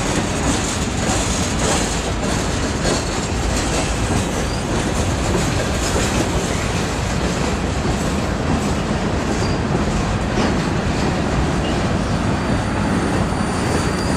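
Freight train cars rolling past in a steady rumble, wheels clacking over the rail joints. A thin high wheel squeal comes in near the end.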